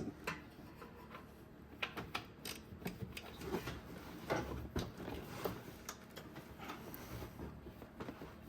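Light, irregular clicks and clinks of hand tools working on the serpentine belt tensioner's bolts.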